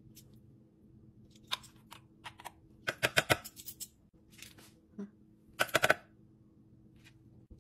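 Sharp clicks and taps of a jar and utensil against a plastic food processor bowl as ingredients are added, coming in two quick rattling clusters about three and six seconds in, with a duller knock between them. A faint steady hum runs underneath.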